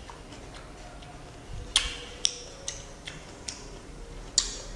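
Close-miked chewing of fresh pineapple: a series of sharp, wet mouth clicks and crunches, irregularly spaced, the loudest about two seconds in and again near the end.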